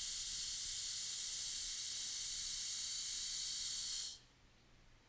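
TIG welding arc at about 55 amps, hissing steadily and high-pitched, then cutting off abruptly about four seconds in as the arc is stopped.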